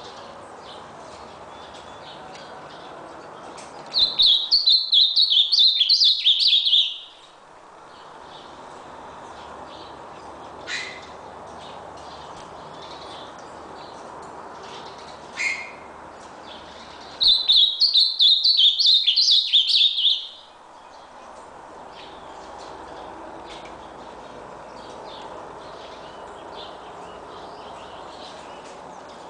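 Ultramarine grosbeak (azulão) singing: two rapid, high-pitched song phrases of about three seconds each, about four seconds in and again about seventeen seconds in, with two short single notes between them, over steady background noise.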